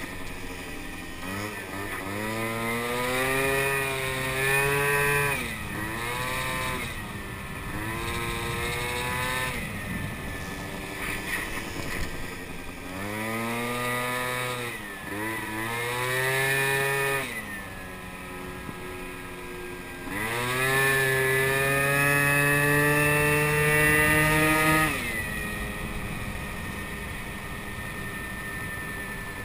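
Small moped scooter engine heard from the rider's seat, with wind rushing past. The engine is opened up three times: its note climbs and holds high for a few seconds, then drops sharply as the throttle is eased off to a lower, quieter running note.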